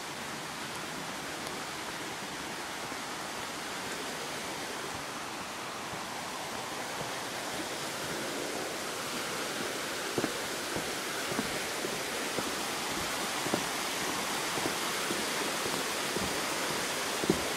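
A steady rushing hiss that slowly grows louder, with footsteps knocking on wooden boards about once a second from about halfway through.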